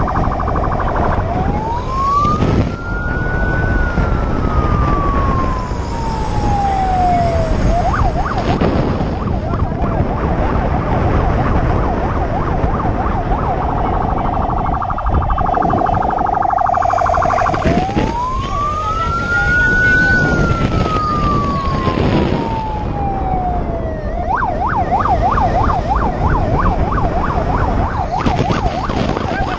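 Police siren wailing twice, each wail rising quickly and then falling slowly, with a fast yelping stretch after each, over steady rushing ride noise.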